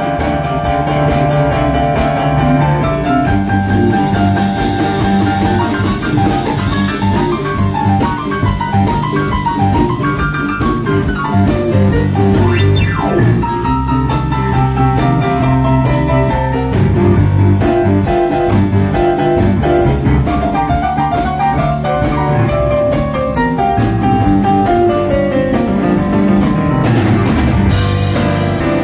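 Live band playing, with drum kit, guitar and a Roland electric keyboard.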